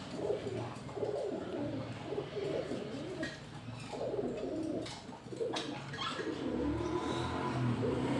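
Domestic pigeon cooing in low, wavering calls, with a few short sharp clicks between about three and six seconds in.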